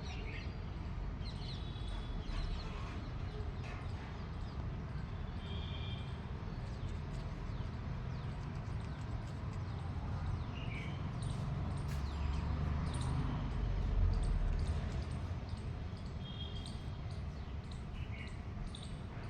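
Short, high bird chirps every few seconds over steady low background noise, which swells for a few seconds past the middle.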